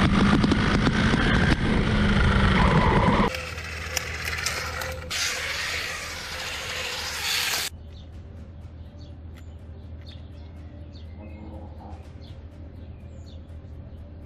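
A 3D-printed 1/8-scale brushless RC car driving on asphalt, heard from on board: a steady motor whine over loud tyre and road noise, cutting off suddenly about three seconds in. A quieter hiss follows, then a low hum with faint small clicks.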